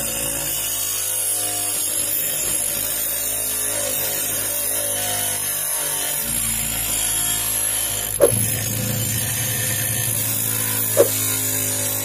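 Everest 150 mm bench grinder with a half-horsepower, 2800 rpm motor grinding a heavily welded steel angle: a steady grinding hiss over the motor's hum. Two sharp knocks come near the end, about three seconds apart.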